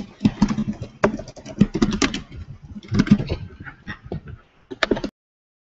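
Computer keyboard typing in irregular clattering runs of keystrokes, cutting off to dead silence about five seconds in.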